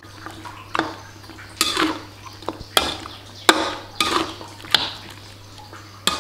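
A cooking utensil stirring and scraping around a pan of pork ribs in a little reduced liquid, about eight irregular scrapes and clacks, working the sauces and palm sugar in until they dissolve.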